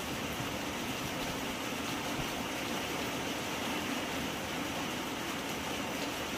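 Heavy rain pouring steadily onto a road and the surfaces around it, an even hiss with no break.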